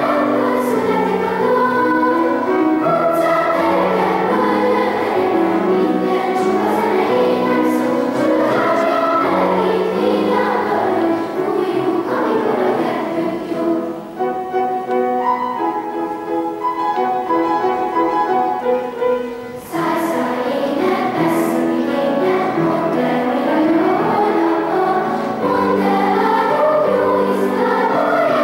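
Children's choir singing a choral piece with grand piano accompaniment. The sound thins and softens for a few seconds around the middle, then returns full.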